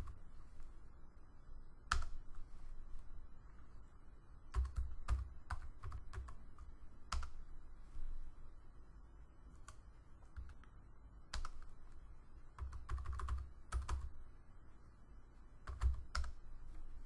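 Typing on a computer keyboard: short, irregular bursts of key clicks with pauses in between.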